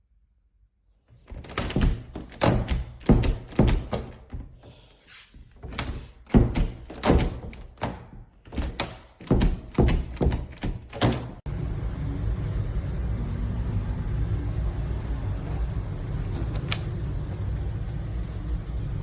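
A rapid series of sharp knocks on wood in two runs, a few strikes a second; a little past the middle they stop and a steady low noise takes over.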